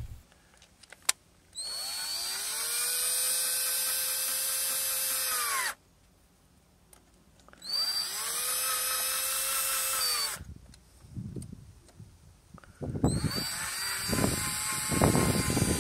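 Ryobi 12-volt cordless drill tightening a hose-clamp screw: the motor whines up to a steady pitch and runs for about four seconds, stops, then runs again for about three seconds. After a few knocks it runs a third time near the end, its pitch wavering under load as the clamp tightens.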